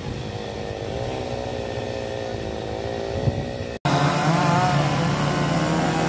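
Mixed engine noise, then after an abrupt cut about four seconds in, a chainsaw running steadily at high speed while cutting up a felled tree trunk.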